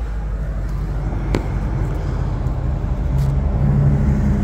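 A motor vehicle engine running: a steady low rumble with a hum that grows louder about three seconds in. There is a single sharp click about a second in.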